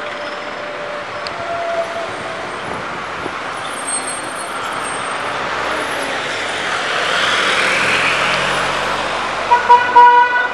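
Busy city street traffic, with a bus passing close and the noise swelling to a peak partway through. Near the end a vehicle horn gives a few short, loud toots.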